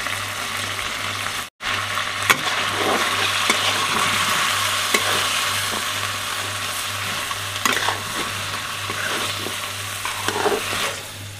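Crab and spice paste frying in an aluminium kadai with a steady sizzle, while a flat metal spatula stirs and scrapes against the pan, giving sharp clicks every second or two. The sizzle breaks off for a moment about a second and a half in.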